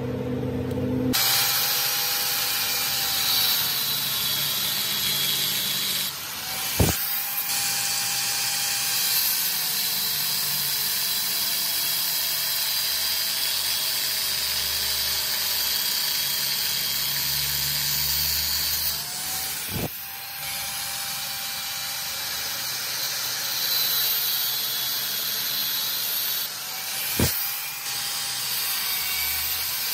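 Angle grinder starting about a second in and grinding a steel sprocket clamped in a vise: a steady motor whine under the hiss of the disc on metal. Three sharp clicks come partway through, and after the last two the whine rises again.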